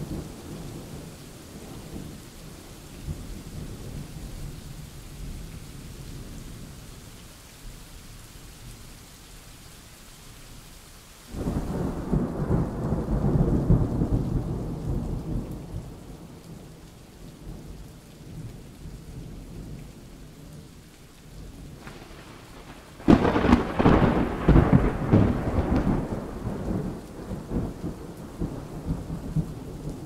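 Thunderstorm: steady rain under rolling thunder. A rumble of thunder breaks in suddenly about eleven seconds in and fades over several seconds, and a sharper, louder clap comes about twenty-three seconds in and rumbles on for a few seconds.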